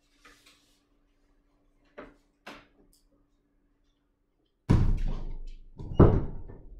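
A door shutting with a loud bang, followed about a second later by a second, sharper thump; a few light clicks and knocks come before it.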